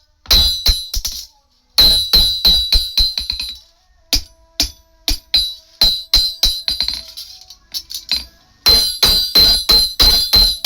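Hand hammer striking hot steel on an anvil while forging a sickle blade: runs of quick, evenly spaced blows, about four to five a second, each ringing metallically. The hammering pauses briefly near the start and again for a few seconds in the middle, with only scattered lighter taps, then resumes in a steady run near the end.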